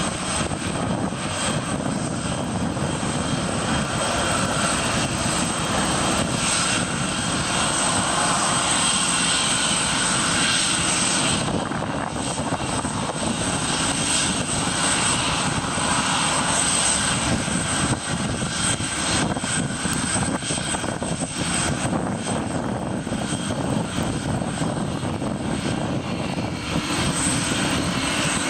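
Boeing 747-400 jet engines running steadily at low power, a broad rush of noise with a constant high whine on top.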